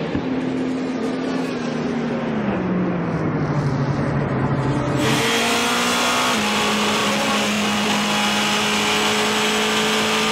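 Porsche 919 Hybrid's turbocharged V4 engine heard from the cockpit, its note falling in steps as the car slows through the gears for the first few seconds. About halfway through the sound cuts to the engine running at a steady, nearly constant pitch, with one small step down a little later.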